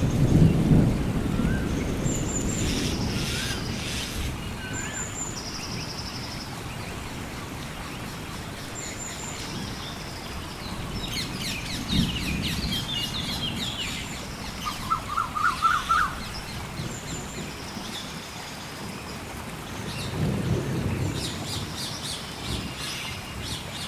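Rainforest ambience: steady rain with low rolls of thunder near the start, about halfway and again near the end, and birds chirping and trilling over it.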